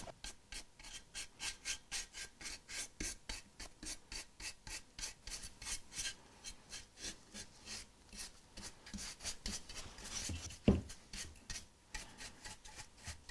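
Bristles of a nearly dry paintbrush scrubbing over the rough surface of a black-painted decorative-concrete sculpture in quick, repeated strokes: dry-brushing bronze pigment on as a patina. A brief thump about two-thirds of the way through.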